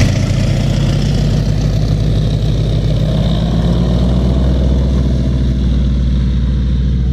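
Z-37 Čmelák crop-duster's Walter M-462 nine-cylinder radial engine running steadily at low power as the aircraft taxis, a deep, even drone.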